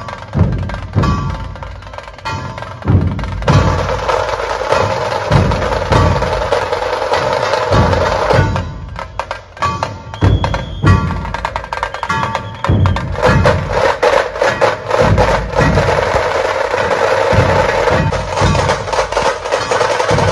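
Loud drum-heavy music: deep drum beats in a steady rhythm, roughly one to two a second, with sharper percussion and a steady mass of instrument sound over them.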